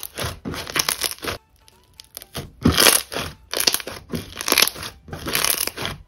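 Pink foam-bead slime squeezed and kneaded by hand, giving irregular crunching and crackling, with a quiet pause of about a second a little before the middle.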